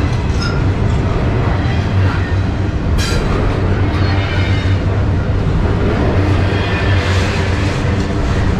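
Freight cars of a double-stack intermodal train rolling past at speed: a steady, loud rumble of steel wheels on rail, with a sharp clank about three seconds in and faint wheel squeal.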